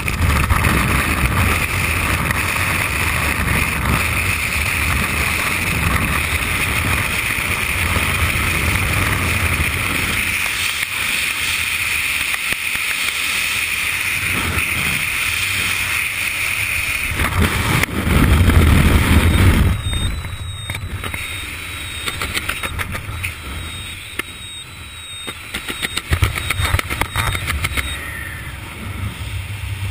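Freefall wind rushing over a skydiver's camera microphone: a loud, steady buffeting rush. It swells briefly about eighteen seconds in, then eases and turns gustier.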